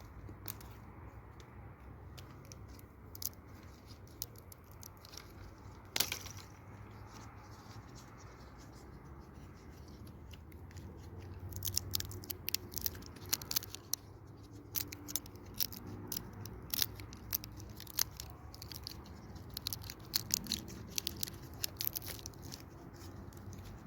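Irregular crackling and clicking close to the microphone, sparse at first and growing busier about halfway through, over a steady low hum.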